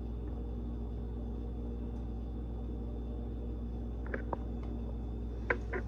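Steady hum with several held tones, with a few light clicks about four seconds in and again near the end.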